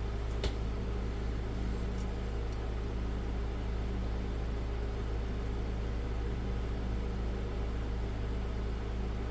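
Steady low mechanical hum with a faint hiss, and a single short click about half a second in.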